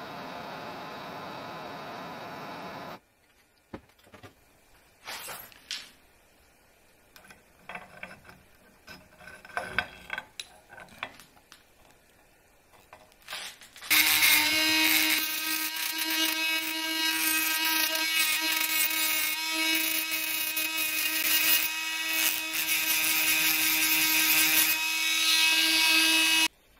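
A gas torch hisses steadily for about three seconds, followed by faint handling clicks and rubs. About halfway through, a handheld rotary tool with a small abrasive bit starts up loud and runs at a steady pitch, grinding the metal wire ring on the antler whistle, then cuts off suddenly near the end.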